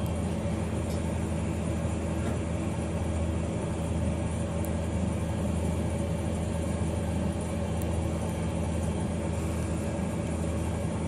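Steady low machine hum with several even tones layered in it, unchanging.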